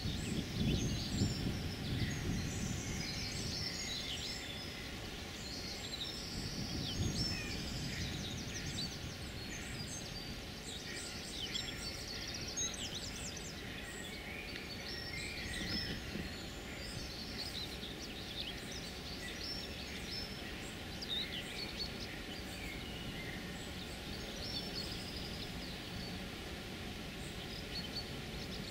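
Several birds singing, a steady stream of short chirps and trills, over a low background rumble that swells briefly at the start and again about seven seconds in.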